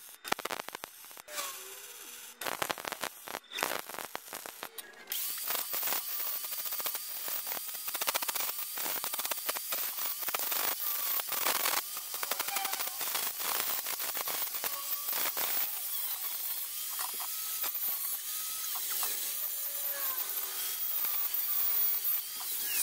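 Short crackling bursts of MIG welding for about the first five seconds, then an angle grinder grinding the welded steel frame, running steadily with a faint wavering whine.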